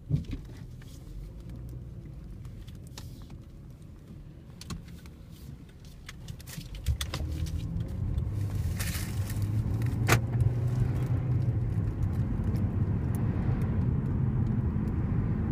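Car engine and road noise heard from inside the cabin, with scattered small clicks and rattles. It is quiet at first, then grows louder about seven seconds in as the car gathers speed.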